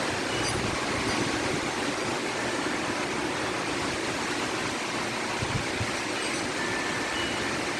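Strong wind blowing steadily, a constant rushing noise, with faint high chime tones ringing briefly now and then, struck by the wind.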